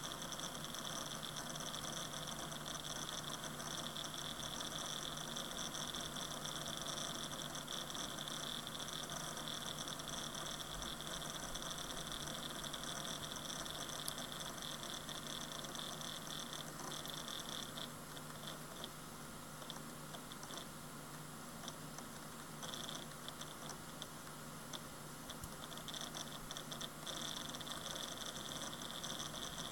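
WD Caviar Black 2 TB hard drive running: a steady hiss with a low hum and a high whine. The whine breaks up into an irregular on-off flicker for about ten seconds past the middle, and the level dips slightly, before it returns steady near the end.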